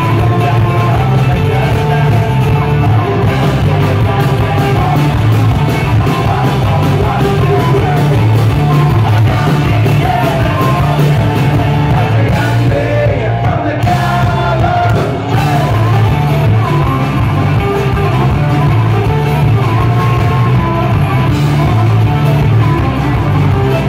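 Live folk-punk band playing loud and fast: fiddle over electric and acoustic guitars, mandolin and drums, with sung and shouted vocals.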